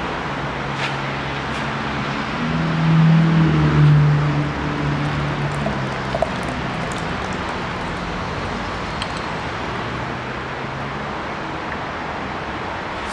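Steady traffic-like background noise, with a motor vehicle's engine hum swelling and fading about three to five seconds in.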